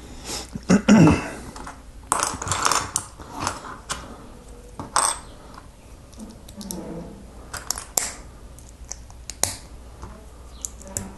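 Lego pieces being handled and pressed together: scattered plastic clicks and taps, with a louder knock and rustle about a second in.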